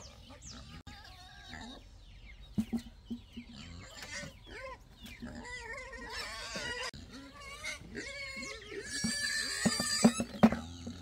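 Farm animals calling: a run of short calls that bend in pitch, louder and busier a little before the end.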